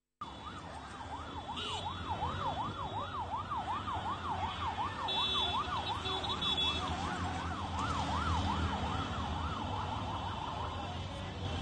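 Emergency vehicle siren on a fast yelp, its pitch sweeping up and down about three times a second and fading out near the end, over the low rumble of a busy street.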